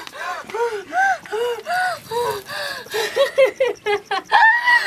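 A woman's voice making rhythmic gasping, huffing cries, about two a second, quickening after about three seconds, then a higher, drawn-out cry near the end.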